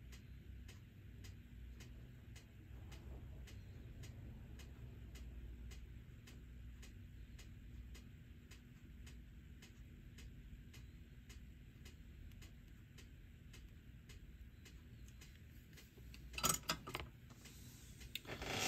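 Faint, steady, even ticking at about two ticks a second, over a low hum. A few louder, irregular handling noises come near the end.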